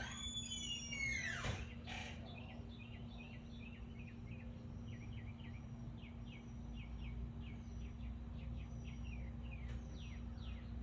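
A bird calling outdoors: a falling call at the start, then a long run of short, repeated downslurred chirps, about two or three a second. A steady low hum runs underneath.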